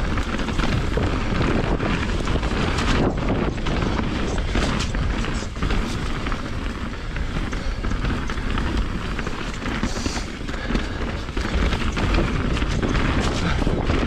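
Mountain bike (2020 Rocky Mountain Instinct BC) riding fast down a rough trail: a steady low rumble of wind on the microphone and tyres on the ground, with a constant stream of knocks and rattles as the bike goes over rocks and roots. The level dips briefly about ten seconds in.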